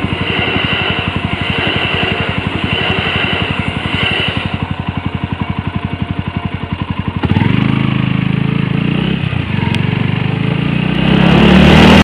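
Suzuki Grasstracker BigBoy's single-cylinder four-stroke engine idling with a steady, rapid beat, while a level-crossing bell rings over the passing train for the first few seconds. About seven seconds in the engine revs up and the bike pulls away, getting louder toward the end.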